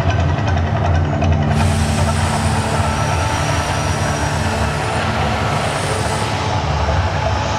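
Loud, steady deep rumble of the volcano show's eruption effect played over loudspeakers.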